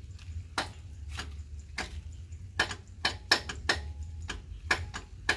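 About a dozen sharp, irregular clicks and knocks over a low steady rumble.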